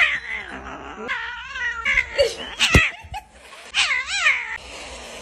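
Tabby kitten yowling at the camera, about five drawn-out calls with a wavering pitch. A single sharp knock comes between them about two and a half seconds in.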